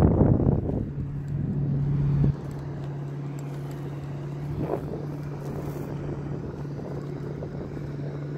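Steady drone of the parasail tow boat's engine, heard from high above. Wind rumbling on the microphone dies away about two seconds in.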